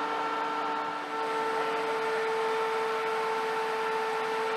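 Machinery running steadily: a constant drone with a held whine over an even hiss, dipping briefly about a second in.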